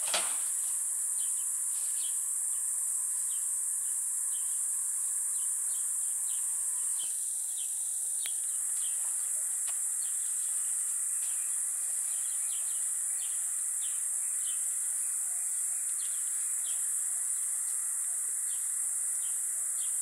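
Steady high-pitched drone of insects in the bush, with short bird chirps repeating every half second or so over it. A single short tap comes right at the start.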